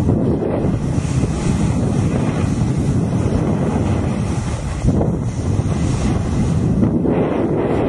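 Wind buffeting the camera microphone as a snowboard slides down a groomed slope: a loud, steady low rushing noise mixed with the scrape of the board on snow, swelling slightly twice near the end.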